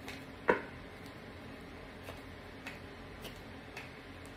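Tarot cards being handled and drawn from the deck: one sharp card snap about half a second in, then fainter clicks of the cards roughly every half second.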